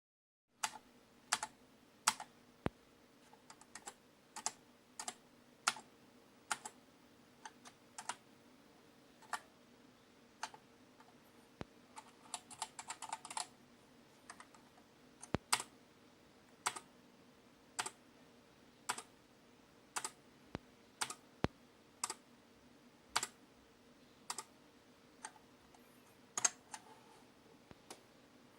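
Single keystrokes on an XMIT Hall effect keyboard, one clack about every second, with a quick run of several presses about twelve seconds in. A faint steady hum lies underneath.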